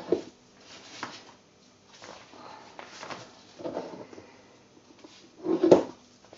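Soft handling noises from piping soap frosting by hand: scattered light knocks and rustles, the loudest a little before the end.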